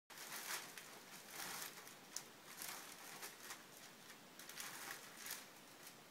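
Large sheets of wrapping paper rustling and crinkling in short, irregular rustles as a toddler crawls over and pushes them.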